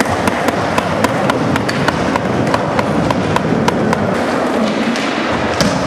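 Skateboard wheels rolling on a smooth concrete floor: a steady loud rumble with sharp, evenly spaced clicks, about three a second.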